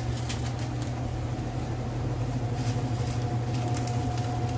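A steady mechanical hum from a motor or fan, with short crinkles of a plastic seasoning sachet being handled and torn open in the last second or so.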